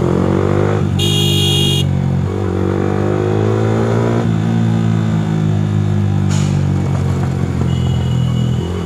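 Motorcycle engine running and accelerating through traffic, its pitch rising twice. A vehicle horn honks for under a second about a second in, and a fainter horn sounds near the end.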